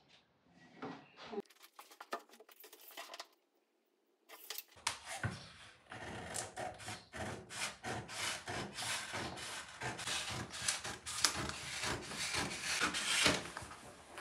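Self-adhesive vinyl contact paper crackling and rustling as it is unrolled and handled on a countertop. A few faint clicks and a short silent gap come first, and the crackling runs on from about five seconds in.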